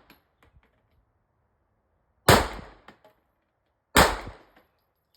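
Two gunshots about a second and three quarters apart, each dying away over about half a second with faint echoes after it.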